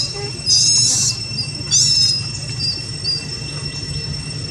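Baby long-tailed macaque crying in distress after being warned off by an adult monkey: two loud, high-pitched cries in the first two seconds, then a few faint squeaks.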